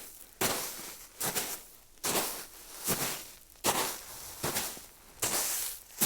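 Footsteps of leather shoes crunching on snow, walking at a steady pace of a little more than one step a second, each step a short crisp crunch.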